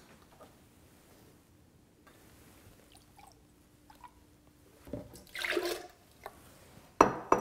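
Vegetable juice pouring and glugging from a bottle into a blender jar, loudest about five seconds in. A sharp knock comes near the end.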